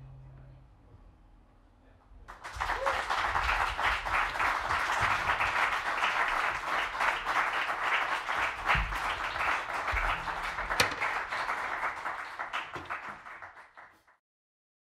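The trio's last low note fades out. Then an audience applauds from about two seconds in, until the sound cuts off suddenly near the end.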